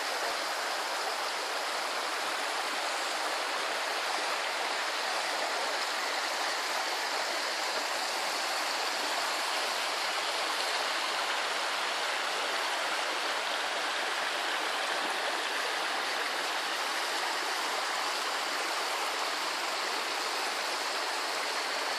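Partly iced-over mountain stream running among rocks: a steady rushing of water.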